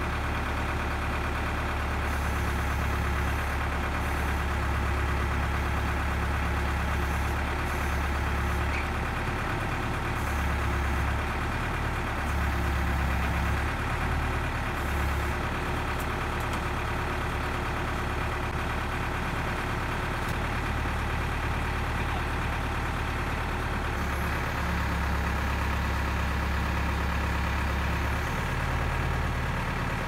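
Diesel engine of a New Holland LB75B backhoe loader running steadily while it lifts a ditch bucket on a chain, its low drone swelling louder at a few points.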